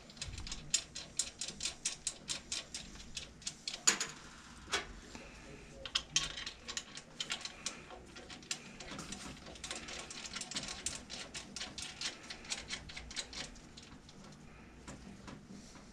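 Runs of fast metallic clicking as the four bolts holding the pump base plate to the dishwasher's electric motor are put in and tightened, with a short pause about halfway.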